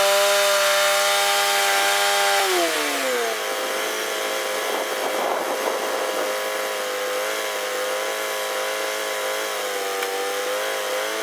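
Mighty Mite bandsaw mill's gas engine running at a steady high speed, then dropping in pitch about two and a half seconds in and running on at a lower, slightly wavering speed.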